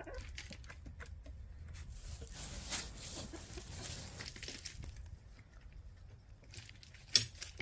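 Rustling and crinkling for a few seconds, with one sharp click near the end.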